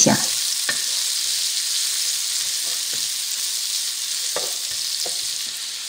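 Sliced onion and minced garlic sizzling gently in oil in a nonstick wok over low heat, softening to bring out their aroma. It is a steady hiss with a few faint ticks.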